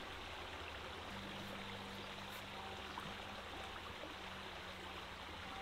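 Small stream running over a shallow rocky riffle: a steady rush of water.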